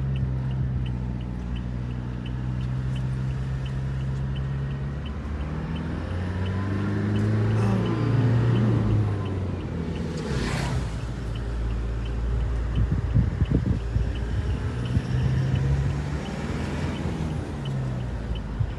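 A Toyota's engine running as heard from inside the cabin while driving. Its pitch falls and rises again between about six and nine seconds in, as with a gear change. A short loud whoosh comes just past halfway, and irregular tyre rumble and knocks follow as the car crosses rough road.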